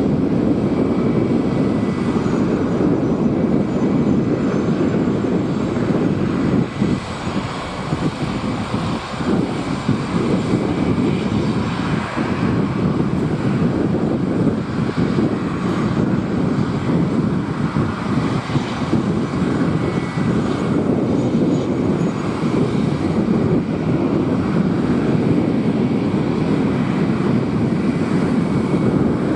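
Dassault Falcon three-engine business jet taxiing, its turbofan engines running at low power with a steady rumble and a faint high whine.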